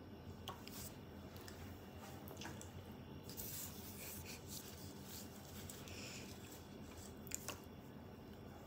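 Faint rustling and a few light clicks, the sharpest about seven seconds in, over a low steady hum.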